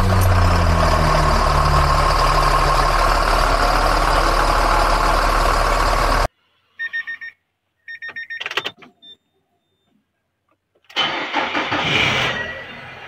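Mercedes-Benz OH 1526 bus's rear diesel engine running just after starting, its revs dropping and settling over the first few seconds. The sound cuts off abruptly about six seconds in. Then come a few short electronic tones, and near the end a swelling sound effect.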